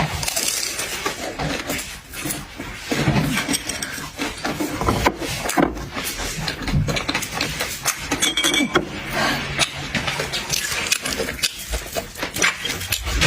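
Close-up eating sounds: fried skewers being chewed and crunched in the mouth, with irregular clinks of dishes and cutlery.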